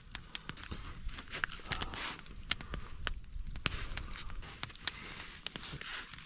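Food frying on a hot griddle: irregular crackling and popping over a faint sizzle.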